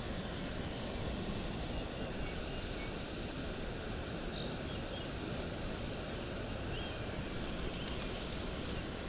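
Steady outdoor wind noise, with a few short high bird chirps about three to four seconds in and again near the end.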